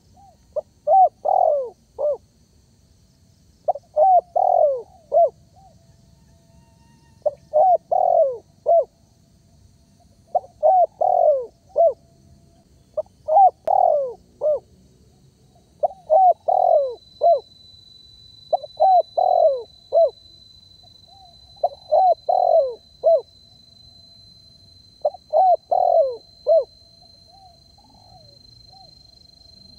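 Spotted dove cooing persistently: a phrase of about four coos repeated roughly every three seconds, nine times over.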